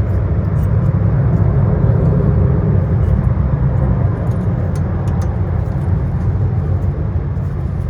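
Steady low rumbling background noise, with a few faint light clicks over it.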